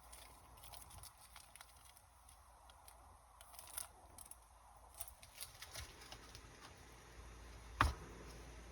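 Faint crinkling and light clicks from trading cards and foil pack wrapping being handled, with one sharper knock near the end.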